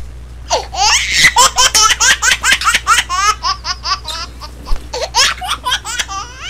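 A baby laughing: a quick run of high, giggling laugh syllables, several a second, each sliding up or down in pitch.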